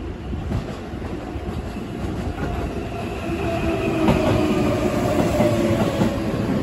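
Keihan 7000 series electric train pulling into a station: wheels rumbling and clattering on the rails, getting louder as the train draws level about four seconds in, with a motor whine that sags slightly in pitch as the train slows to stop.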